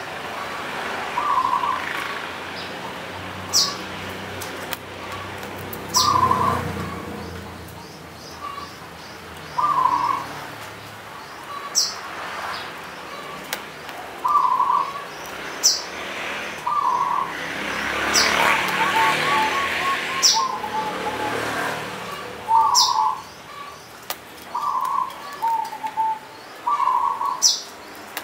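Caged zebra dove (perkutut) cooing: short rolling coo phrases repeated every few seconds, one drawn out into a longer trill midway. Short, sharp high chirps sound between the coos every couple of seconds.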